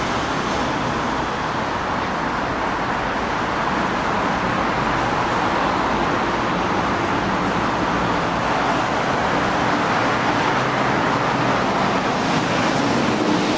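Steady road traffic noise, heard from inside a pedestrian underpass, with a faint low hum coming in near the end.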